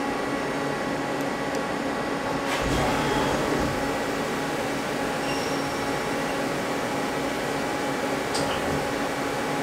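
Mazak CNC lathe running its automatic cycle with a steady machine hum. About two and a half seconds in, a rush of noise with a low rumble rises as the flood coolant comes on and sprays inside the enclosure. There is a short tick near the end.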